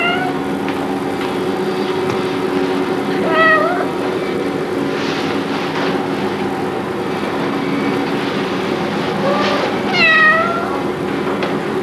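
Kittens meowing: a few drawn-out cries several seconds apart, the loudest near the end, over a steady low hum.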